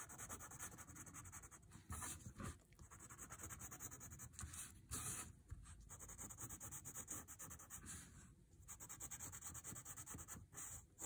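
Faint scratching of a graphite pencil on paper in quick, repeated short shading strokes, with a few brief pauses.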